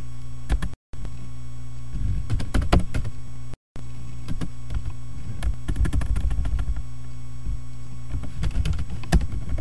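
Computer keyboard typing in short runs of keystrokes, over a steady low electrical hum; the sound drops out completely for a moment twice.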